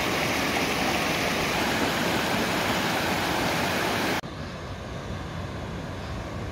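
Mountain stream rushing over rocks, a steady loud noise. About four seconds in it drops suddenly to a quieter, duller rush.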